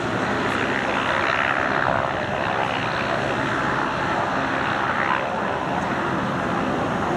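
Propeller-driven aircraft engines running steadily, with a slight swell about one to two seconds in.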